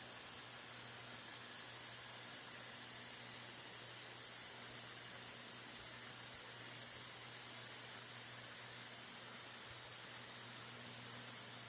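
Overhead high-voltage power lines crackling and hissing steadily from corona discharge, a sound like flowing water, with a low steady hum underneath.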